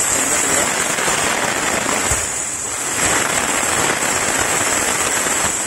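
Steam wand of a Milesto IV espresso machine opened fully, blowing steam out in a loud, steady hiss that eases off near the end.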